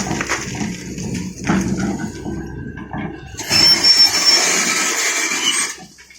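Liugong 921D excavator running, with knocks and clatter from its work. About three and a half seconds in, a loud rushing hiss comes in for about two seconds, then cuts off sharply.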